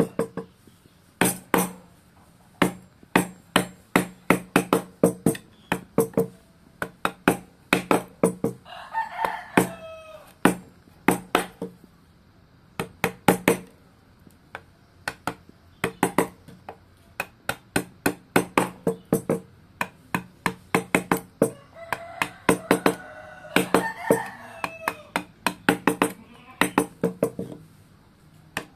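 Wooden mallet tapping a steel carving chisel into wood in quick runs of knocks, about three a second, with short pauses between runs. A rooster crows twice, about nine seconds in and again about twenty-two seconds in.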